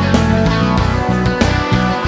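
Rock music with distorted electric guitar and drums.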